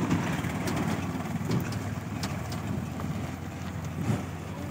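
Diesel tractor engine running steadily while it pulls two loaded sugarcane trailers.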